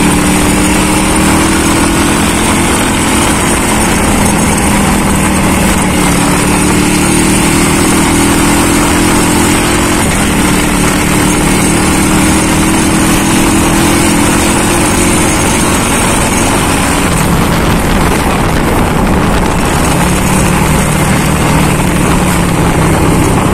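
Honda CB100 motorcycle engine running while riding, its note creeping slowly up in pitch and dropping back about ten seconds in and again around seventeen seconds in, with steady wind noise on the microphone.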